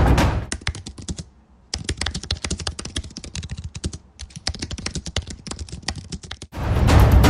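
Rapid typing on a computer keyboard: a dense run of key clicks with two short pauses. Music with a heavy low drum fades out as the typing begins and comes back in loudly near the end.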